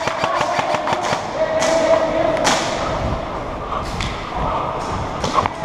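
Airsoft electric rifle (an ARES Amoeba M4) firing a rapid full-auto burst, about ten clicking shots a second, in the first second, followed by a couple of heavier thuds and a few more scattered shots.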